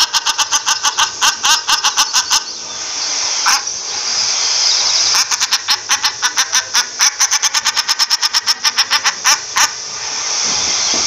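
Common shelduck calling: fast runs of short, sharp notes, about five a second, broken twice by pauses in which a steady hiss remains.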